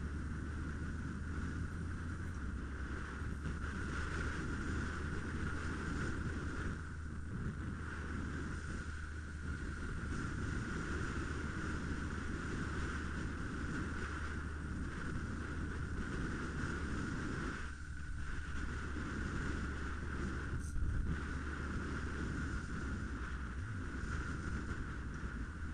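Muffled, steady motorcycle engine and wind noise while riding, heard through a helmet-camera microphone covered with tape, with a deep hum under it. A short knock comes about three-quarters of the way through.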